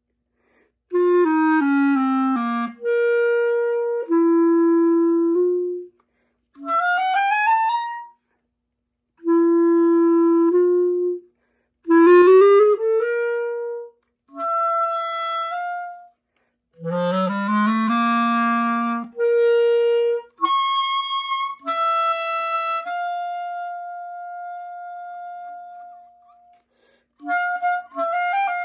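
Solo clarinet playing short separate phrases with pauses between them: quick runs, swooping upward glides and a long held note that fades away.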